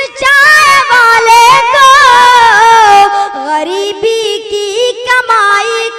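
A boy's high voice singing a line of Urdu verse at a microphone, in long held notes that waver and slide in pitch, the melodic style in which mushaira poetry is recited (tarannum).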